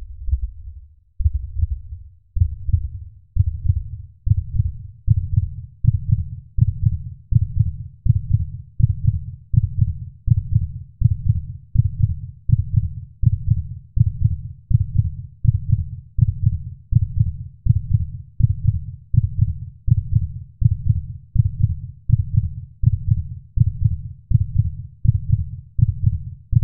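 Heartbeat sound effect: low, deep thumps in a steady rhythm. It speeds up from about one beat a second to about three beats every two seconds, growing louder over the first few seconds, then holds that faster pace.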